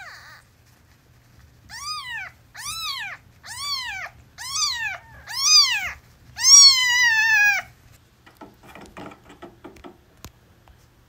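Newborn kitten mewing: five short, high cries, each rising then falling in pitch, then one longer, louder cry that slowly falls. Faint rustling follows near the end.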